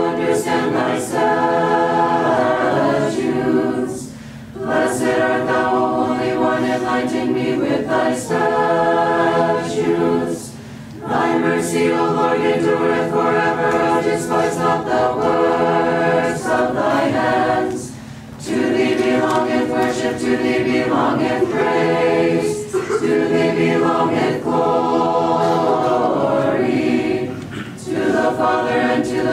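Choir singing Orthodox liturgical chant a cappella, in long phrases with brief pauses between them.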